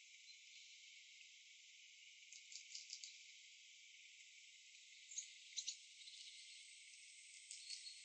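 Faint, steady high hiss, broken by a few sharp clicks and short chirps: a cluster about two and a half seconds in, the loudest pair about five and a half seconds in, and more near the end.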